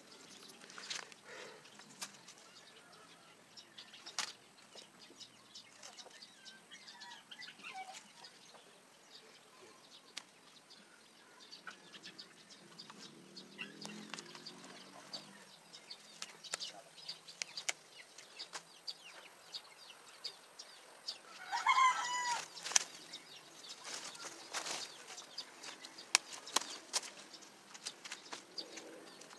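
Light rustling of leaves and scattered small clicks and knocks as freshly cut alagaw plants are handled and the phone is moved over them. A single short pitched animal call stands out about three quarters of the way through.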